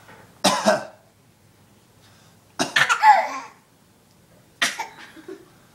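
Three short cough-like vocal bursts, one about half a second in, one in the middle and one near the end.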